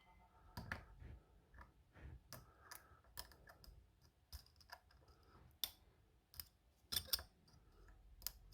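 Faint, irregular light clicks and ticks of a dimple pick working the pins of a small TSA dimple lock under tension, as the pins are set one by one.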